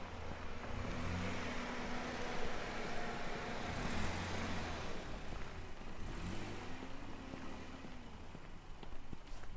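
A car driving past, its engine and tyre noise swelling to a peak about four seconds in and then fading away.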